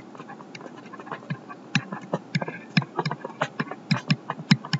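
Pen stylus tapping and clicking on a tablet PC screen during handwriting: an irregular run of short, sharp clicks, sparse at first and busier from about two seconds in.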